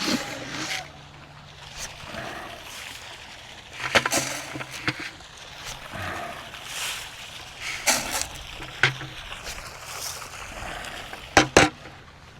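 Feed being poured and scattered for the animals, several bursts of rustling hiss with a few sharp knocks between them.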